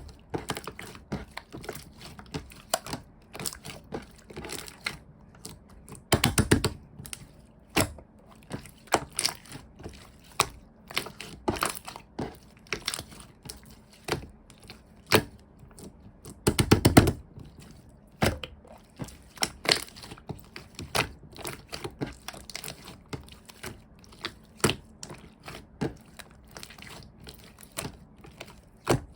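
Slime being squeezed and pressed by hand, making irregular sticky clicks and pops, with two spells of rapid crackling popping, at about six and about seventeen seconds in.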